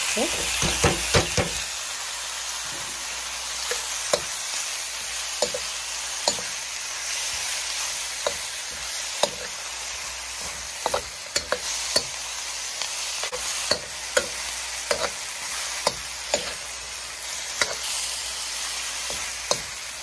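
Chopped leafy greens and vegetables sizzling in hot oil in a wok, louder in the first second or two as they are tipped in. A metal utensil clicks and scrapes against the pan at irregular intervals as they are stirred.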